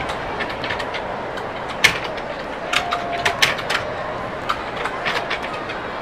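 Marbles rolling down a race track: a steady rolling noise with irregular sharp clicks as they knock against one another and the track's pegs and barriers.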